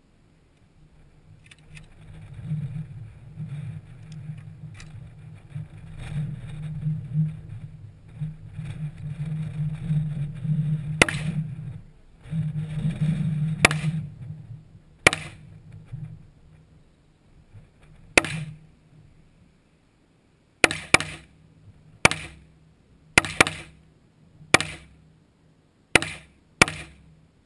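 AK-47 and AR-15 rifles firing single shots at irregular intervals, about eleven in all, the first about eleven seconds in and coming faster near the end. Before the shooting starts there is only a low steady rumble.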